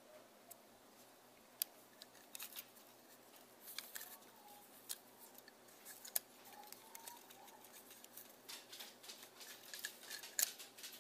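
Irregular light plastic clicks and ticks from the barrel and inner parts of a Canon EF 50mm f/1.8 II lens being handled and twisted as its focus ring and internal assembly are worked loose.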